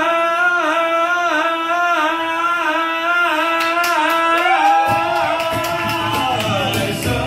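A man singing live, holding one long high note with a slight wobble. About five seconds in, an acoustic guitar comes in underneath, and the voice slides down near the end.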